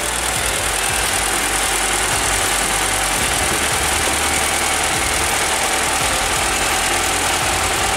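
2013 Chevrolet Tornado's 1.8-litre four-cylinder engine idling steadily.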